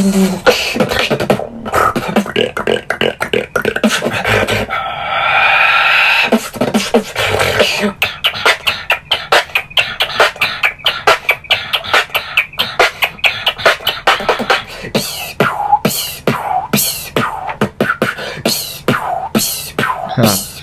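Solo human beatboxing: a fast run of mouth-made drum hits and clicks, about four or five a second for most of the time. A held pitched vocal tone lasts a couple of seconds about a third of the way in.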